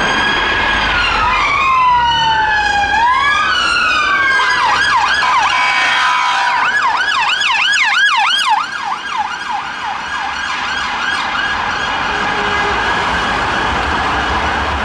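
Several police car sirens on a convoy of Metropolitan Police armed response vehicles, sounding over one another. They give slow rising-and-falling wails for the first few seconds, then switch to fast yelps. After about nine seconds they grow fainter over traffic noise.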